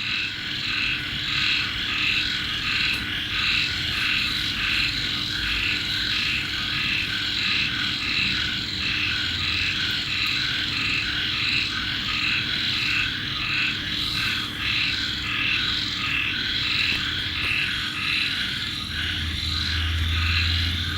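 Steady chorus of calling animals, pulsing evenly about twice a second, over a faint steady hum.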